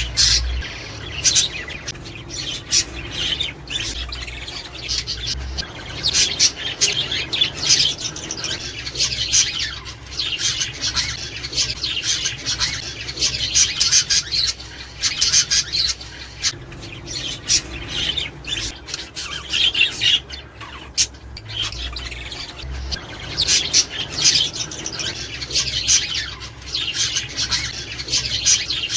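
Budgerigars chattering continuously, a busy mix of warbles, chirps and squawks.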